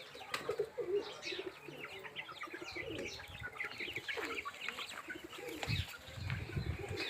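Flock of chickens with chicks: many short high-pitched chick peeps over the lower clucking of grown birds.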